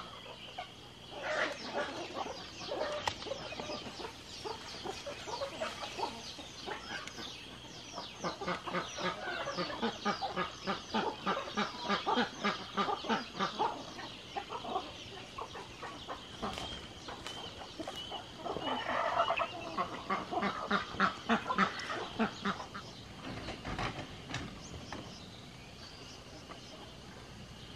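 A flock of penned chickens and ducks clucking and quacking, in rapid runs of short calls that swell twice and die away near the end.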